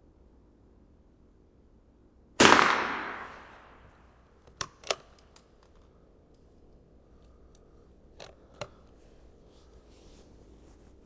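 .22 Long Rifle rifle firing a single shot about two seconds in, with a long echoing tail that dies away over a second or so. A couple of sharp metallic clicks follow a few seconds later, and two more near the end.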